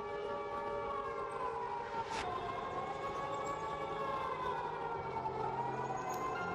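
Civil defence siren sounding a slow wail, its pitch falling and rising over a few seconds at a time: the air-raid warning signal.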